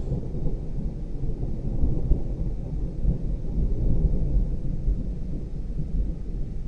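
Thunderstorm sound effect: a continuous low rumble of rolling thunder with rain.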